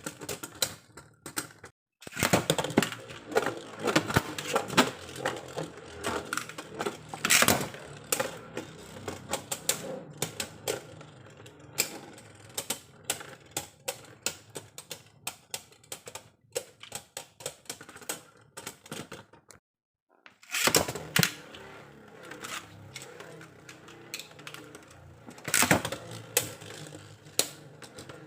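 Rapid, irregular plastic clicking and clattering of Beyblade Burst spinning-top parts, broken by two short silences.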